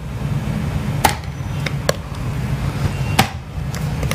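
A few sharp knocks and clicks as thick brownie batter is scraped out of a glass mixing bowl into a metal baking tray, over a steady low hum.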